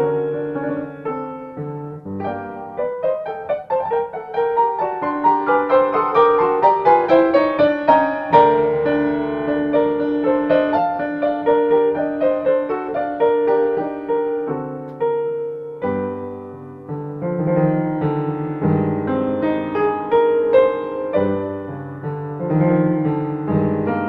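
Background solo piano music, classical in style.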